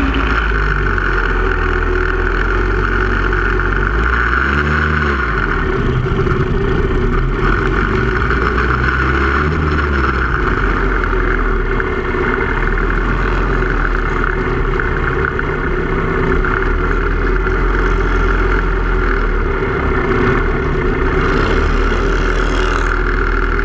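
Harley-Davidson 45-cubic-inch flathead V-twin running hard at racing throttle, heard from a camera mounted on the motorcycle. The engine pitch dips and climbs again about five seconds in.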